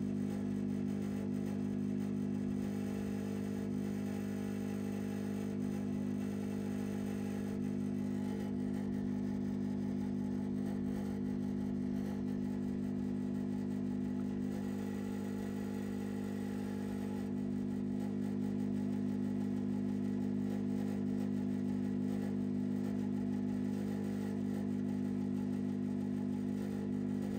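Neuberger RPM370 tube tester humming steadily under heavy load, a sign that current is flowing through the PL519 power pentode under test.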